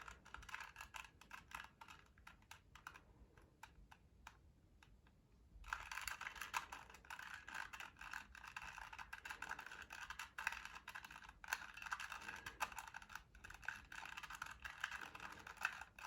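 A plastic 2x2 Rubik's Cube being turned by hand, its layers making quick, light clicks. The clicks thin out to a few about three seconds in, then a dense run of turns picks up again from about six seconds.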